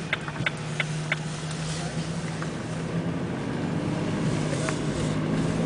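Steady engine hum and road noise inside the cabin of a moving car, with a few short clicks in the first second.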